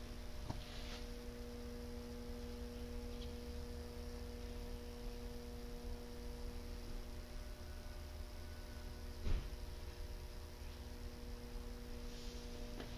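Steady electrical hum with a low rumble underneath, and a single short knock about nine seconds in.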